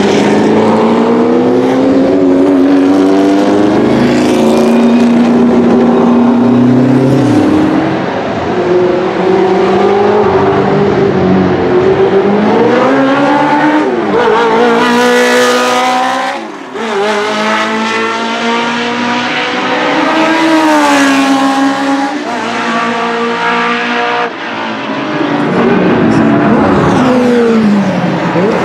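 Alfa Romeo T33/3's 3.0-litre V8 racing engine driven hard past the track, over several passes, its revs repeatedly climbing and then dropping through gear changes. Other historic race cars are heard in places.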